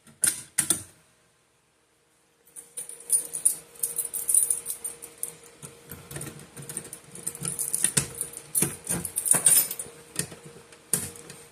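Fire alarm pull station being handled and fiddled with: a few sharp clicks, a brief dead gap, then a long run of irregular clicks and rattles. A faint steady hum runs underneath the rattling.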